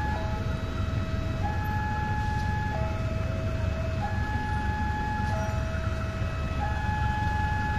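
Railway level-crossing warning signal sounding with the barriers down: an electronic two-tone alarm that alternates steadily between a higher and a lower tone, switching about every second and a quarter. A continuous low rumble runs underneath.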